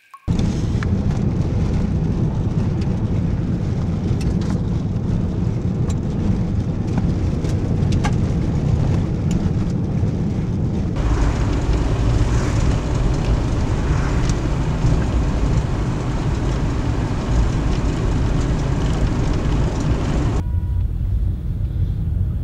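Steady low rumble of a vehicle running, its sound changing abruptly about eleven and twenty seconds in.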